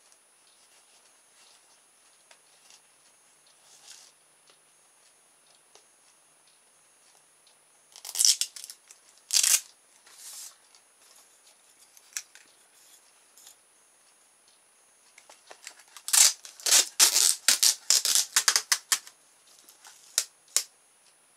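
Scissors cutting polystyrene foam plate. There are a few sharp snips about eight to ten seconds in, then a quick run of many short cuts lasting about three seconds, and a last couple of snips near the end.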